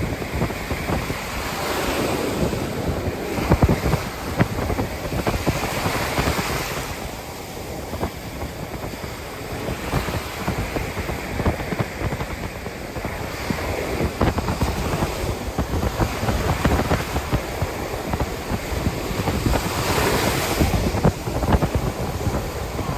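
Ocean surf breaking on a beach, with waves rushing in and swelling louder a few times, and strong wind buffeting the microphone throughout.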